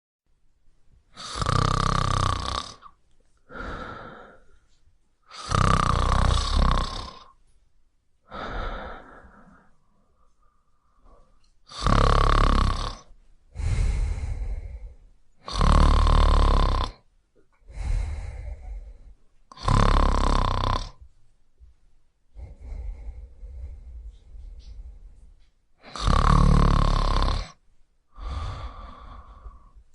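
Loud snoring in a steady rhythm: six long snores, about one every four seconds, each followed by a fainter breath. A little past the middle comes a longer stretch of quieter breathing before the snoring resumes.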